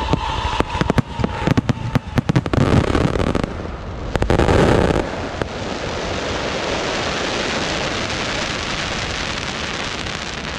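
Aerial fireworks: a rapid string of bangs and pops for the first three and a half seconds, a louder burst about four to five seconds in, then a steady hiss.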